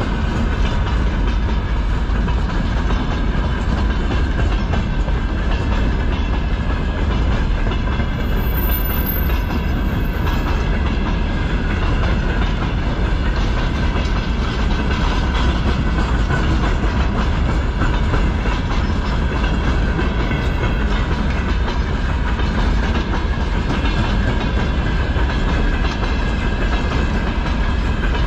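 Freight train of open-top gondola wagons rolling past close by: steady, loud wheel-on-rail noise with faint ringing tones above it.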